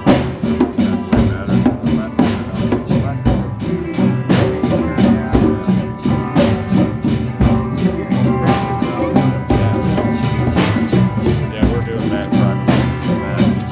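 Live rock band playing a song in 3/4 time: bass guitar, electric guitar, drum kit and a pair of tall hand drums, with a steady beat.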